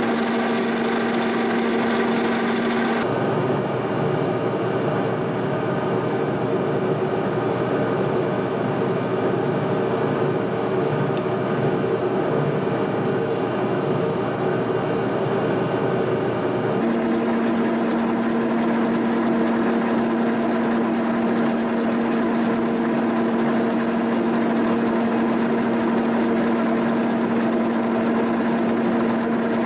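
Milling machine running a boring-bar cut through the steel bore of a backhoe boom: a steady mechanical hum with pitched tones. About three seconds in it changes abruptly to a rougher, noisier sound, and it returns to the steady hum about 17 seconds in.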